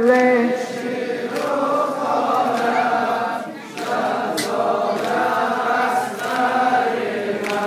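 Many men's voices chanting a Muharram noha mourning lament together in unison, with long held notes and short dips for breath.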